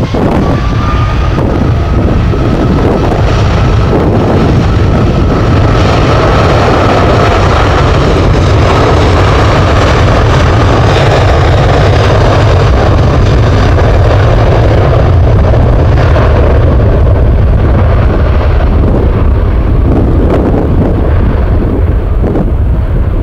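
Jet airliner engines close by, a loud, steady rumble with a faint high whine over it for the first few seconds.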